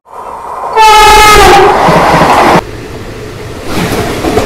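A train horn blares for about a second, dropping slightly in pitch, as a train passes close by. The rush of the passing train follows, then steady rail clatter.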